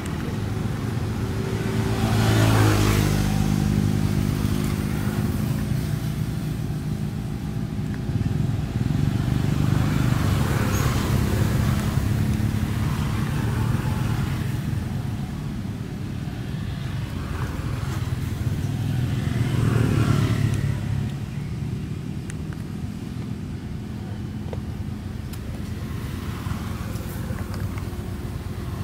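Motor vehicles passing one after another, with a steady engine hum underneath. The engine note drops as the first one goes by a few seconds in, and the traffic swells again near the middle and about two-thirds through.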